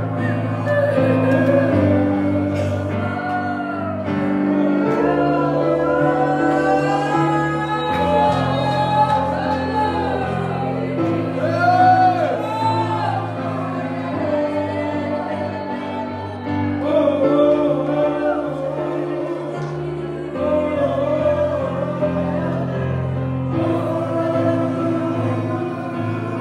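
Congregation singing in many overlapping voices without clear words, long notes rising and falling, over slow held chords that change every few seconds.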